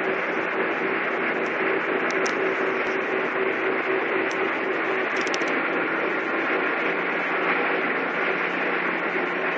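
Steady background noise of a public aquarium hall with a low, even hum running under it.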